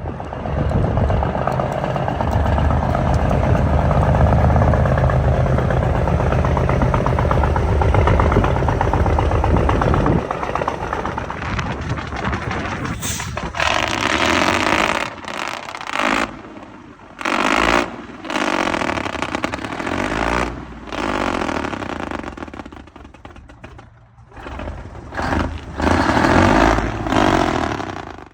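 Heavy diesel truck engine, plausibly the 1958 International's 220 Cummins, running loud and steady for about ten seconds, then heard in a series of separate loud bursts with short dips between them.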